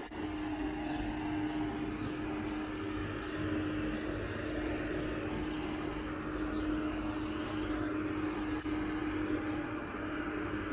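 Diesel passenger train running: a steady hum over an even rushing noise.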